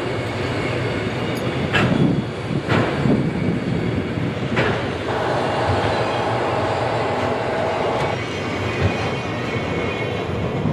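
CSX freight train's autorack cars rolling past close by, steel wheels clattering with a few sharp clanks over the rail joints. A steady wheel squeal rises about five seconds in and stops about three seconds later.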